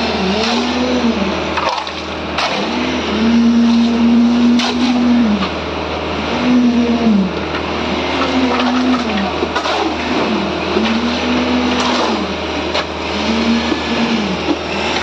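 An engine-driven machine runs steadily, its pitch dipping and recovering every second or two. Scattered clinks and scrapes of a shovel in gravel and wet concrete mix come over it.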